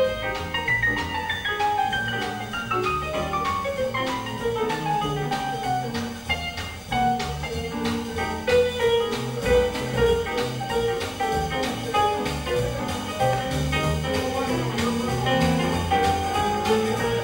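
Small jazz band playing live, with piano in the lead over string bass and drums keeping a steady beat. Early on, a long run of notes falls in pitch over about five seconds.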